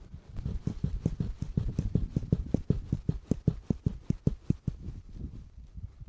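Quick, regular footsteps thudding on soft ground, about four to five a second, fading out near the end.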